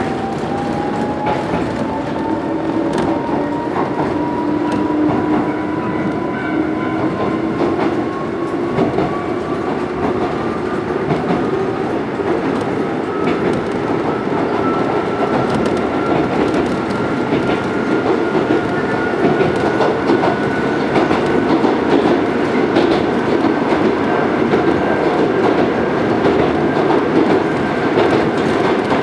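Mizuma Railway 1000 series electric train heard from inside its motor car while running: the traction motor's whine rises slowly and steadily in pitch as the train gathers speed. Wheels rumble and clack over the rail joints beneath it.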